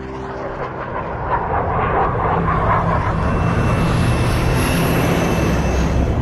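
Jet aircraft engines of a fighter formation passing: a rushing noise that swells over the first second or so and then holds steady, with low sustained tones beneath it.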